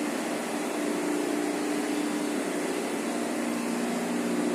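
Tissue-paper slitter-rewinder running: a steady mechanical drone with a few held tones over an even rushing noise.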